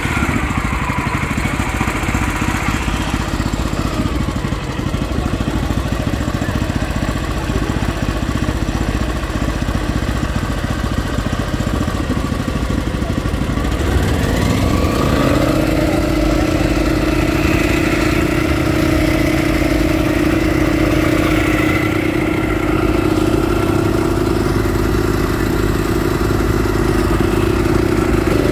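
Honda GX390 single-cylinder four-stroke petrol engine driving a canal boat, running steadily; about halfway through it speeds up, its pitch rising over a second or so, and holds at the higher speed.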